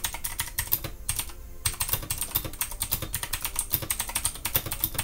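Fast typing on a Redragon K552 mechanical keyboard with Outemu blue switches: a dense run of sharp, clicky keystrokes with a short break a little over a second in.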